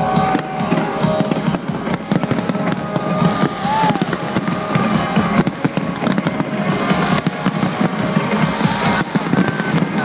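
Fireworks going off, many bangs and crackles in quick succession, over music playing.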